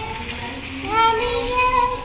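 A high voice singing a melody over music, holding long notes and sliding between them, louder from about a second in.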